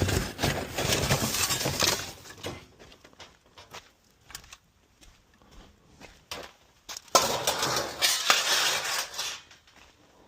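Small pieces of junk and scrap metal clattering and clinking as they are rummaged through and tossed into a sorting box. There are two bursts of rattling, one at the start and one about seven seconds in, with scattered single clicks between.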